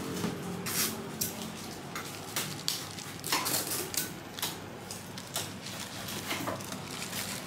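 Irregular sharp rustles and clicks, about a dozen, from paper-wrapped durian flesh and plastic being handled and set down.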